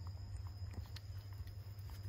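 Faint scattered taps and rustles of a monkey's hands and feet on a concrete path strewn with dry leaves, over a steady low rumble and a thin, steady high whine.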